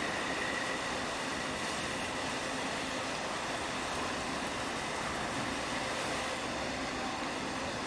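Steady rumble and hum of a large crude oil tanker under way, with a faint high whine over it.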